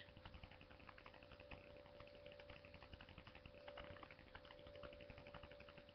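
Near silence: faint small clicks and taps of hands handling a yoyo and its packaging, over a steady faint hum.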